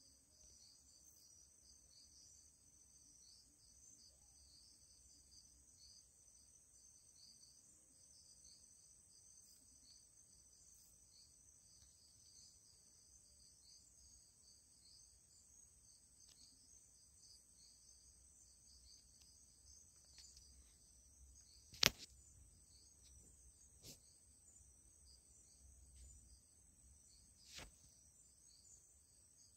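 Faint, steady, high-pitched chorus of insects in the forest. Three sharp clicks come in the last third, the first one the loudest.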